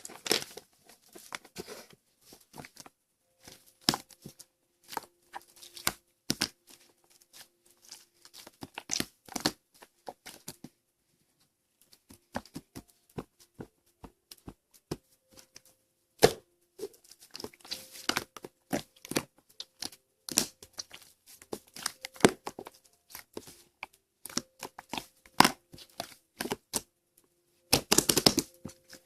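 Slime being handled by hand, stretched, pressed and folded, giving irregular sticky pops and crackles, with a short lull near the middle and a dense run of crackling near the end.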